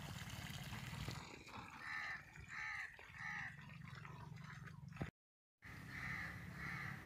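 Crows cawing, a run of three caws about two-thirds of a second apart and two more near the end, over a low rumble of wind.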